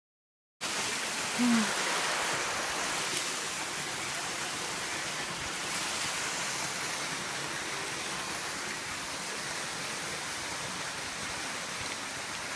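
A steady rushing noise, like running water or wind, that cuts in abruptly just after the start. A brief low tone rises above it about a second in.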